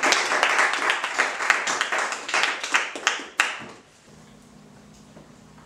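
A small audience applauding, the clapping dying away about three and a half seconds in and leaving a faint low hum.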